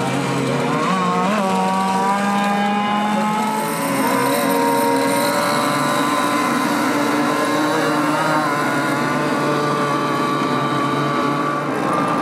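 Small single-cylinder two-stroke engine of a gas-powered RC powerboat idling steadily, its pitch stepping up and down a few times.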